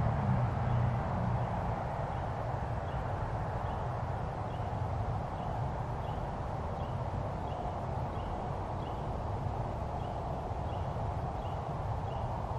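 Steady low outdoor rumble, with a passing vehicle fading away in the first second or two. From about four seconds in, faint high chirps or ticks repeat about twice a second.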